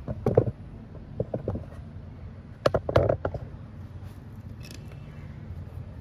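Small metal parts and hand tools being handled: several clicks and clatters in three short bunches, the loudest near the middle, over a steady low background hum.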